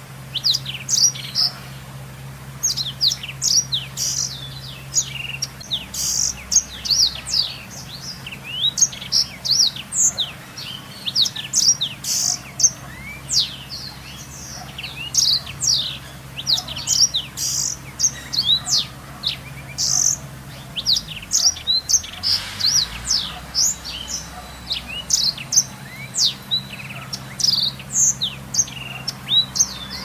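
Blackthroat (black-throated canary) singing a long, continuous song of rapid high chirps, twitters and trills.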